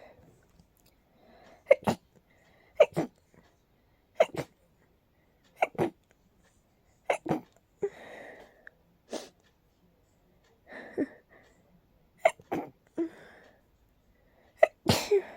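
A person sneezing over and over in a rapid allergy sneezing fit: about ten sharp sneezes, one every second or so, several coming in quick doubles, with breaths in between.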